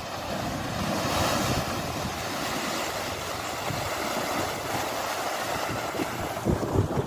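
An Ineos Grenadier 4x4 driving through a shallow muddy ford, its tyres churning up water in a steady splashing wash. Wind buffets the microphone near the end.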